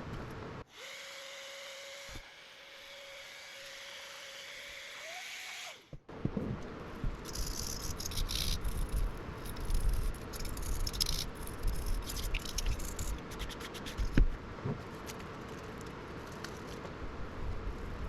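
A small electric motor whirs steadily for about five seconds, its pitch rising just before it cuts off. It is followed by irregular scrubbing, rubbing and clicking from hand work on the graphics card.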